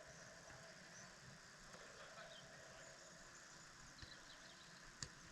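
Near silence: faint open-air ambience, with a single sharp knock about five seconds in.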